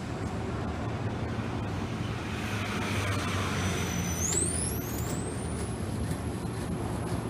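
A vehicle being run in the shop for a shake and abnormal-noise check: a steady low mechanical rumble. About four seconds in, a high whine rises in pitch and then holds steady.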